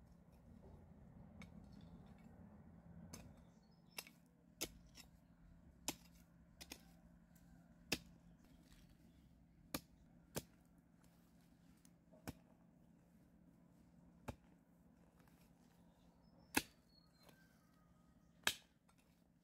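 Metal hoe blade chopping into dry, lumpy soil: about a dozen sharp strikes, one every second or two, the two loudest near the end.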